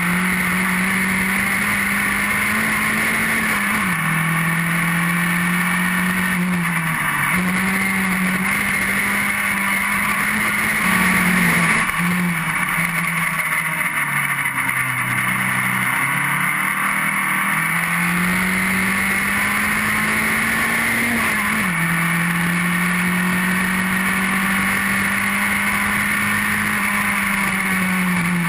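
Formula Sheane racing car's Rover 1800cc four-cylinder engine at race speed, heard onboard over steady wind noise. The revs climb and drop sharply at each upshift, four times in all, and sag lower for a few seconds around the middle before pulling up through the gears again.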